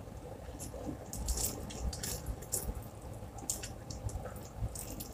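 Close-up sounds of a person eating by hand: quiet chewing with scattered short smacks and clicks from mouth and fingers.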